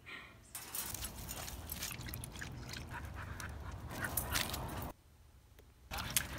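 Dogs playing, with panting, small dog noises and scuffling; the sound changes abruptly several times where short clips are spliced together.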